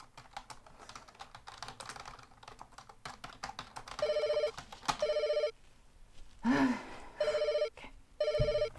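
Computer keyboard typing, then a desk telephone ringing with an electronic double ring: two pairs of short rings. Between the two pairs comes a brief vocal sound.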